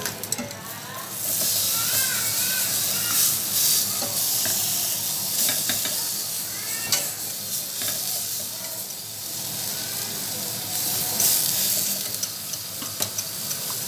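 Meat sizzling in a hot frying pan, loudest in the first few seconds and again near the end, with a wire whisk stirring thick gravy in a stainless steel saucepan and clicking against the metal.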